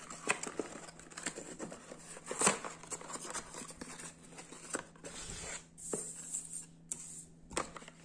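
Crinkling of brown kraft packing paper and a cardboard box being handled, with scattered small taps and rustles and one louder knock about two and a half seconds in.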